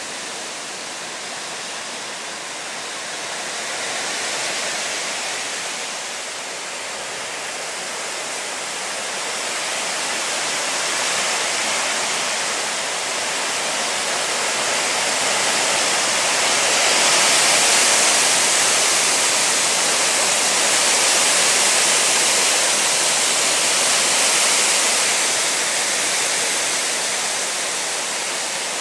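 Gusty storm wind rushing steadily through the leaves of tall trees, swelling to its strongest gusts about two-thirds of the way through, then easing a little.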